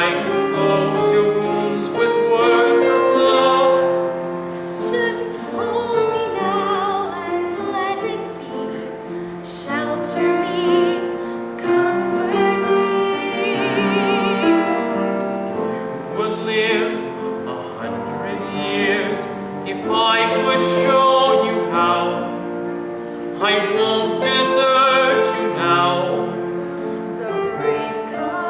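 Musical-theatre ballad singing with instrumental accompaniment, led by a female voice in phrases, with a long held note sung with wide vibrato about halfway through.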